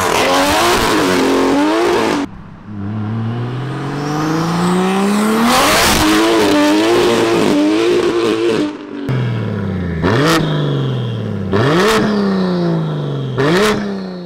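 Single-turbo BMW S55 straight-six, with a manual gearbox, accelerating hard in several pulls. The revs climb steadily and fall sharply at each gear change or lift-off, and the sound breaks off abruptly a few times between runs.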